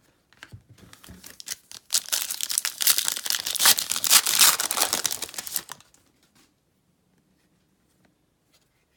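A trading-card pack wrapper being torn open and crinkled, a dense crackling that builds for about two seconds, is loudest in the middle and stops about six seconds in.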